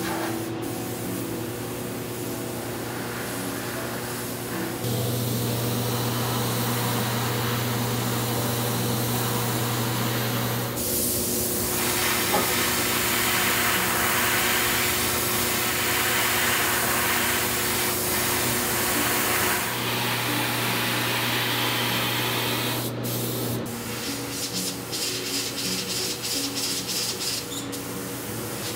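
Steady spraying hiss from a nozzle. It starts about five seconds in and turns louder and brighter near the middle, with a low hum under it at the start and end of the spraying. It cuts off about three-quarters of the way through, leaving a run of faint quick clicks.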